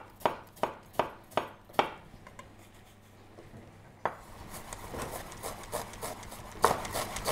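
Kitchen knife slicing an onion on a cutting board: steady cuts about two and a half a second, then a pause, then quieter scraping and tapping with a few more cuts near the end.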